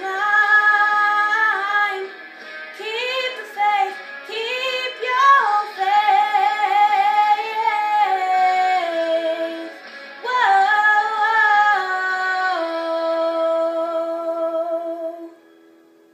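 A young woman singing the last lines of a pop ballad, sliding between notes and ending on a long held note that stops about fifteen seconds in.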